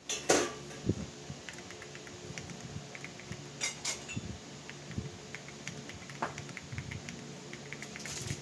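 Typing on an Akko 5075s mechanical keyboard with pre-lubed Akko Cream Blue Pro switches and OSA-profile PBT keycaps: a steady run of keystrokes, several a second, with a few louder clacks, the loudest just after the start.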